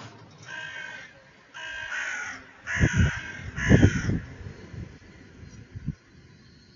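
A crow cawing four times in quick succession, each caw harsh and under a second long. Low rumbling thumps come in under the third and fourth caws.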